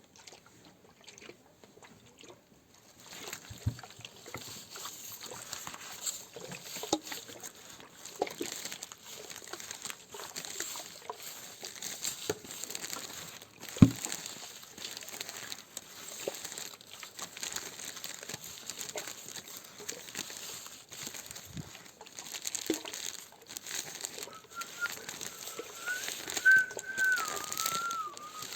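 Classroom materials rustled and tapped to imitate nature sounds: a steady high hiss full of small crackles and taps begins about three seconds in, with one sharp knock about halfway. Near the end a wavering whistle joins it, imitating a bird.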